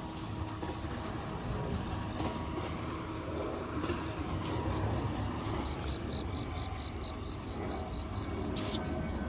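Insects chirring steadily in the background with a continuous high trill, joined in the second half by a pulsed chirp at about three a second, over a low rumble.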